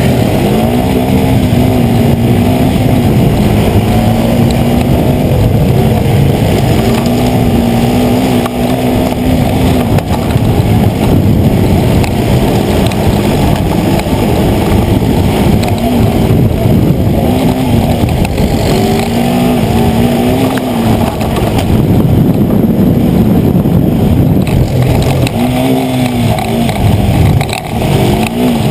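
Racing quad's engine, heard close from a camera mounted on its handlebars, revving up and dropping back again and again as the rider accelerates and backs off between turns.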